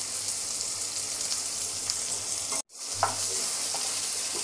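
Chicken tikka skewers sizzling steadily in hot oil in a non-stick pan as green marinade paste is spooned over them. The sizzle cuts out for a moment about two-thirds of the way through, then carries on.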